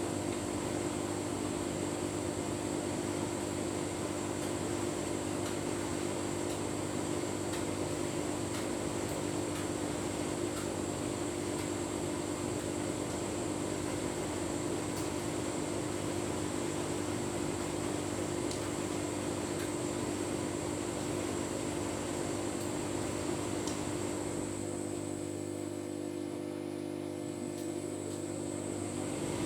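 Tumble dryer running with a full load of bedding: a steady motor and fan hum. About 24 seconds in the running sound drops away for a few seconds, then builds back up near the end.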